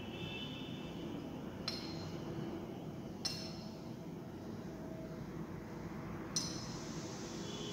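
Glass conical flask clinking three times, each a short sharp click with a brief high ring, as it is swirled under the burette during an EDTA titration; the last clink is the loudest. Steady low room noise underneath.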